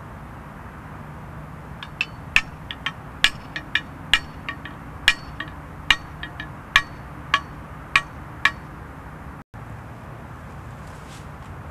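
A hand tool striking something hard: about twenty sharp, ringing metallic clinks at an uneven pace, starting about two seconds in and stopping about three seconds before the end, over a steady low hum.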